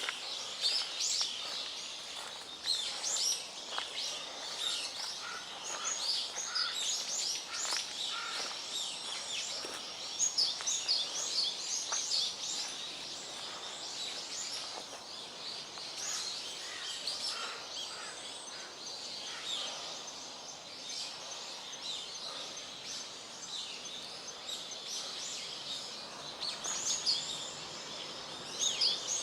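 Many small wild birds chirping in quick, overlapping high calls, with louder clusters of calls about ten seconds in and again near the end.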